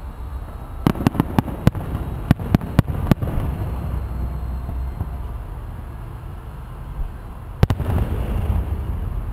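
Aerial fireworks shells bursting: a quick run of about eight sharp bangs about a second in, a steady low rumble, then another loud bang near the end followed by a short burst of dense noise.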